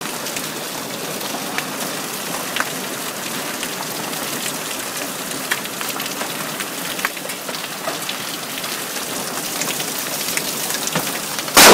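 Hail and rain pelting the lawn, brick walk and street, a steady hiss with scattered sharp ticks of hailstones. Near the end a sudden, very loud crack of thunder from a lightning strike close by that hit a street tree.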